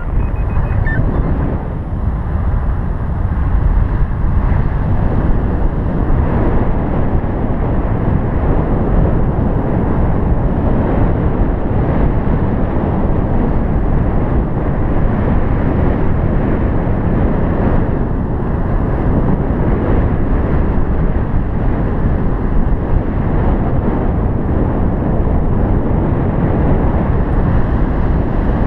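Wind rushing over a paraglider pilot's camera microphone in flight: a loud, steady, low rumbling rush with no breaks.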